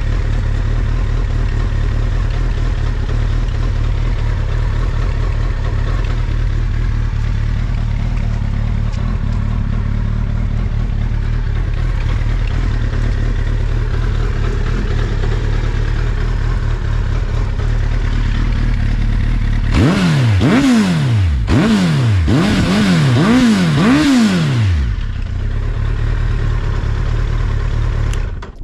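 2004 Suzuki GSX1300R Hayabusa's inline-four engine, breathing through an Akrapovic full exhaust system, idling steadily. About two-thirds of the way in, the throttle is blipped about five times in quick succession, each rev rising sharply and falling straight back, before it settles to idle. The seller describes the engine as running smoothly with no abnormal noises.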